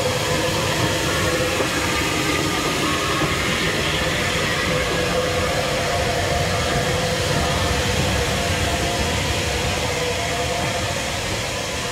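Bulleid West Country class steam locomotive 34092 City of Wells rolling slowly past at a platform, with the steady rumble of its wheels and running gear and no distinct exhaust beats. The sound eases slightly near the end.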